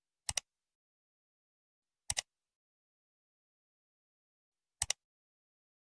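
Dead silence broken by three brief double clicks, a couple of seconds apart.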